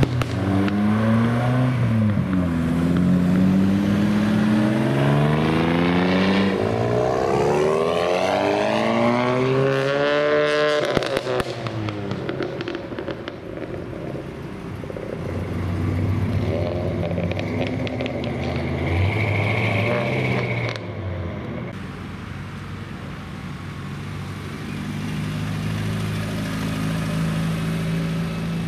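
Modified cars accelerating away one after another, their engines revving up through the gears with rising and falling pitch. A quick run of sharp cracks from an exhaust comes about eleven seconds in, then the quieter, steadier running of further cars driving by.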